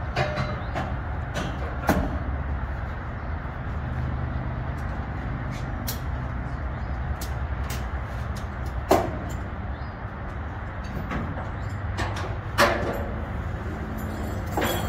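A vehicle engine idling with a steady low rumble, under scattered knocks and clunks of metal in a steel shipping container, two of them louder in the second half.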